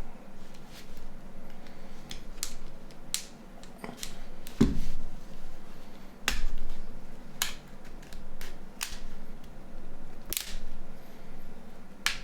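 Scattered sharp plastic clicks and taps from a Nokia E60 phone being handled and pried apart, with a few louder snaps.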